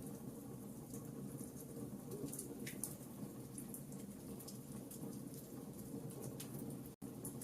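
Wood fire crackling in a fireplace: irregular sharp snaps and pops over a steady low rumble of the burning fire. The sound drops out for an instant near the end.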